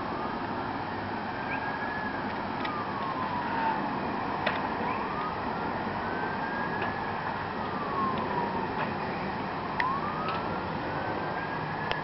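Queensland Fire and Rescue Service fire truck siren in wail mode: a single tone rising and falling slowly, one full cycle about every four seconds, over a steady background hiss. A few short ticks are heard on top.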